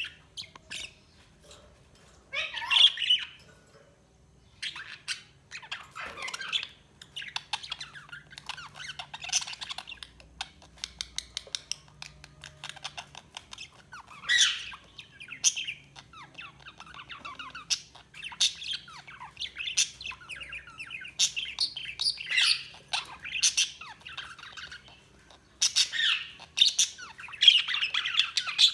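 Budgies (pet budgerigars) chirping, chattering and squawking, with a run of quick warbling chatter broken by louder sharp calls.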